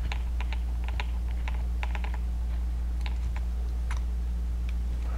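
Faint, irregular small clicks of a 4 mm Allen wrench turning a screw out of a paintball marker's vertical ASA, over a steady low electrical hum.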